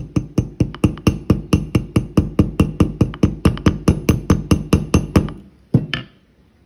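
Rapid, light taps of a 225-gram ball-peen hammer on a straight razor's pivot pin, backed by a steel mason's chisel used as an anvil, about five taps a second with a metallic ring. The pin is being peened to tighten a loose blade. The tapping stops about five seconds in, with two last taps near the six-second mark.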